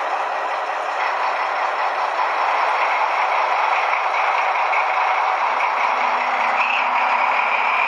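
Sound decoder of a Piko H0 V 211 model diesel locomotive playing its diesel engine sound through the model's small speaker, with the model running along the track. It gets a little louder about two seconds in, and a steady high whine comes up near the end.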